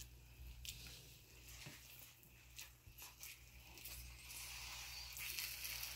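Faint frying sizzle from corned beef hash in a stainless steel pan, with a few soft scrapes and taps of a wooden spoon stirring it. The sizzle grows a little louder after about four seconds.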